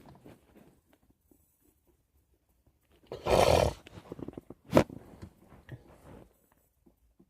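A person lets out a loud, harsh burst of breath lasting most of a second, about three seconds in, then a short sharp one about a second later. These are the rough coughs or hard exhalations of someone smoking a joint with bad allergies.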